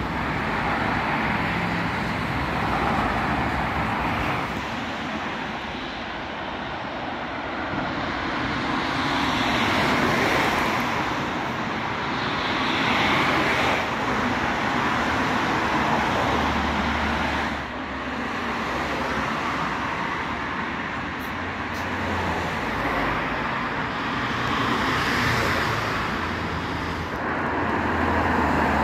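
Road traffic noise: a steady rush of passing cars that swells and fades every few seconds, with a low engine rumble now and then.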